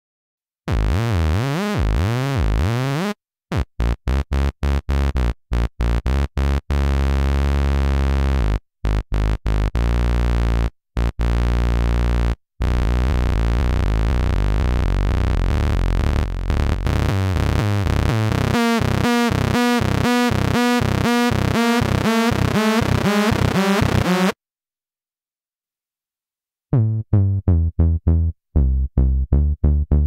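GForce Oberheim OB-X software synthesizer playing bass presets. First comes a run of short, choppy bass notes, then a long held note whose tone pulses several times a second. After a short silence, a quick run of short plucked notes comes near the end.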